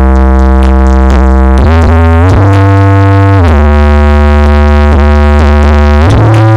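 Loud electronic music carried by deep, sustained synthesizer bass notes that slide to a new pitch every second or two, played through a large sound system during a sound check.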